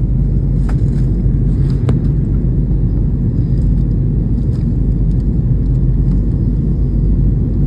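Jet airliner in flight heard from inside the passenger cabin: a steady low rumble of engine and airflow noise, with a couple of faint clicks in the first two seconds.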